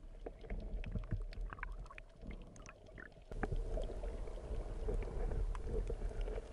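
Underwater sound picked up by an action camera in its waterproof housing: a low, muffled rumble of moving water with scattered faint clicks and crackles. About three seconds in, it abruptly gets louder.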